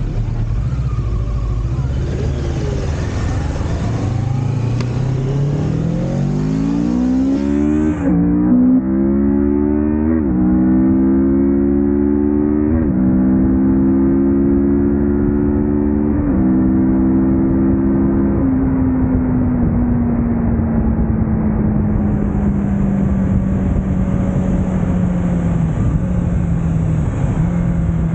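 Kawasaki Ninja 650's parallel-twin engine accelerating through the gears. The pitch holds low for a few seconds, then climbs, drops sharply at each of about five upshifts, and settles into a steady, slowly falling cruise.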